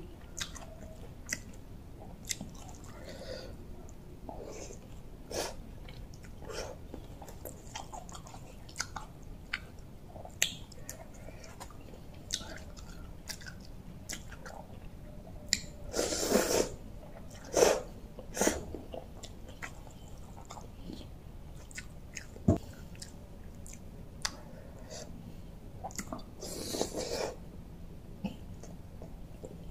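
A person chewing a spicy rice-noodle salad close to the microphone: wet chewing and mouth clicks repeated throughout, with two longer, louder noisy bursts about halfway through and near the end.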